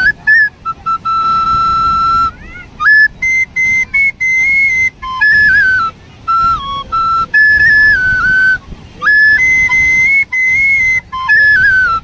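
Bamboo flute playing a melody: one clear line of held notes that step up and down, with short breaks between phrases. A low wash of sea surf lies underneath.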